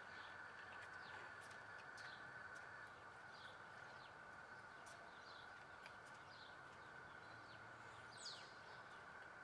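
Quiet outdoor ambience: scattered faint bird chirps over a steady high-pitched tone, with one sharper downward-sweeping chirp about eight seconds in.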